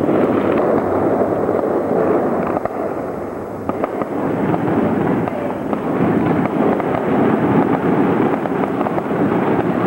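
Fireworks and firecrackers going off in a dense, continuous crackle of many overlapping small bangs, with no real pause.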